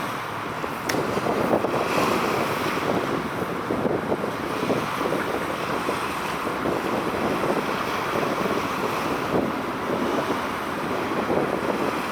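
Wind buffeting the microphone outdoors by the water: a steady, rough rushing noise that grows a little louder about a second in.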